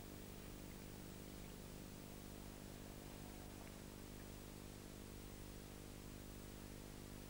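Faint steady hiss with a low electrical hum: background noise of the recording, with no other sound.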